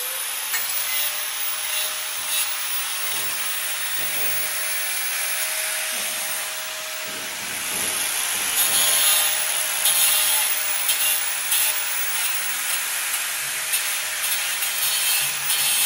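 Angle grinder with a cut-off wheel cutting a metal bracket clamped in a vise: a steady motor whine over continuous grinding noise, growing louder about eight seconds in.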